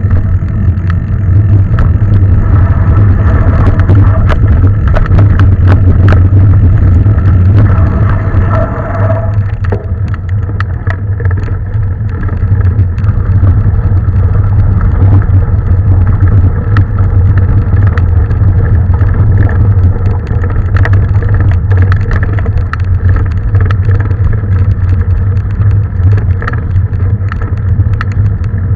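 Steady low rumble of wind and tyres, with frequent sharp rattles and clicks, as a bike is ridden over a rough trail.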